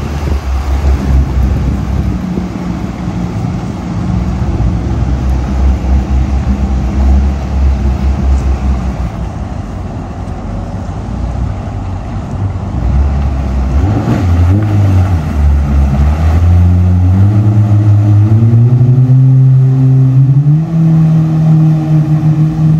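Personal-watercraft engine of a jet-ski-based amphibious side-by-side, idling with a low, uneven pulse as it backs off the trailer and idles out. Near the middle the throttle is blipped briefly, then the engine revs up in steps and holds a higher, steady note as the craft accelerates away across the water.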